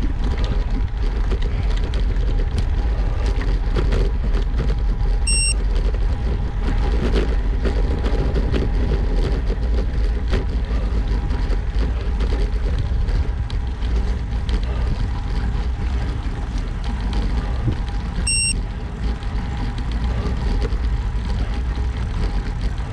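Wind rushing over the microphone and road noise from a road bicycle being ridden, a steady low rumble throughout. Two short high beeps come about five seconds and eighteen seconds in.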